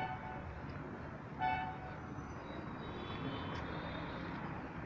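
A vehicle horn honks twice in short, flat blasts: one at the very start and one about a second and a half in. A steady hiss of street noise runs under them.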